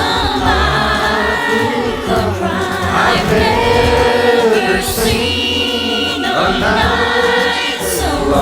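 Music: a choir singing long held notes that slide between pitches, over a low bass.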